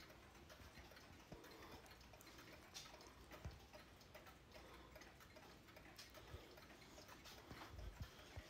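Several mechanical clocks ticking faintly, their beats overlapping out of step.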